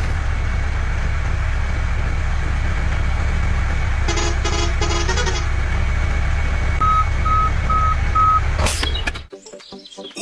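Truck engine running steadily, with a short run of horn toots about four seconds in and four reversing beeps near the end. The engine sound cuts off suddenly just before the end.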